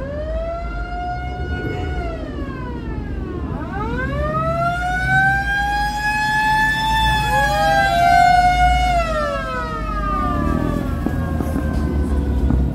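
Siren wailing in slow cycles: the pitch climbs, holds for a second or more, then slides down. Near the middle a second siren tone overlaps it, all over a steady low rumble of vehicles.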